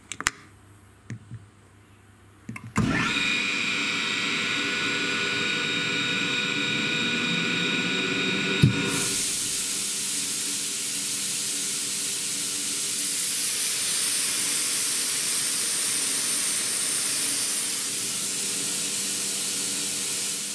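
A few light clicks, then an ELGI E05en rotary screw air compressor starts about three seconds in and runs with a steady whine. Near nine seconds in a click and a loud, steady rush of air follow as it loads and blows through the disconnected discharge hose, raising about 3 bar of back pressure through the hoses and aftercooler, which the owner takes for too much: a restriction he puts down to the hoses.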